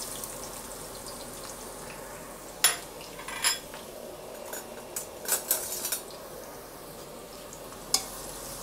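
Sliced onions frying in hot mustard oil in an aluminium pressure cooker, a steady sizzle. A metal spatula knocks and scrapes against the pot a few times, in a cluster around the middle and once near the end.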